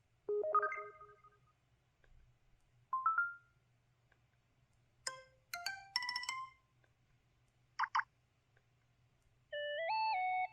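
LG-T390K Wine 3G mobile phone playing its system sound effects one after another: a short chime, a quick blip, a fast cluster of notes, two short beeps, and a brief stepped rising jingle near the end, each separated by a moment of quiet.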